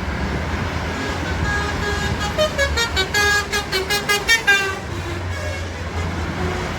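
Bus's multi-tone telolet horn of the basuri type playing a rapid tune of short tooting notes, from about a second and a half in until nearly five seconds, over a steady low rumble of passing traffic.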